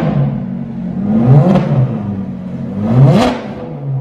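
Straight-piped Ferrari F430's 4.3-litre V8, revved twice from idle while stationary. The pitch climbs sharply and falls back once about a second in and again near three seconds.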